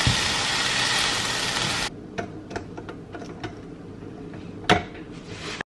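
Diced onions sizzling in a skillet as a wooden spoon stirs them, a loud even hiss that stops abruptly about two seconds in. Then a quieter run of clicks and knocks as ingredients go into a lined slow cooker, with one sharp knock near the end.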